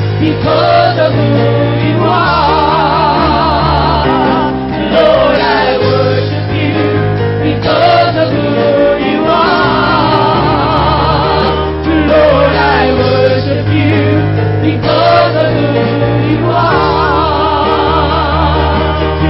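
Gospel praise team and choir singing long held notes with vibrato over instrumental backing with a bass line that moves every couple of seconds.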